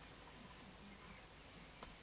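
Near silence: faint outdoor ambience, with one faint click near the end.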